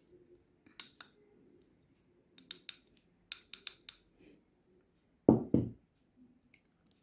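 Metal kitchen utensils clinking lightly against a glass, about a dozen sharp clinks in small clusters. About five seconds in come two louder, duller knocks a moment apart, like something being set down.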